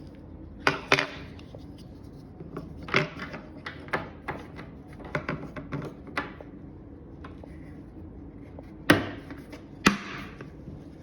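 Clicks and knocks of cabinet panels and corner brackets being handled and pressed into place, with two louder, sharper knocks near the end.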